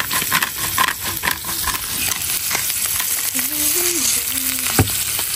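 A hand pepper grinder clicking as it grinds pepper for about the first two seconds, then a steak sizzling in oil in a frying pan. A single sharp knock comes near the end.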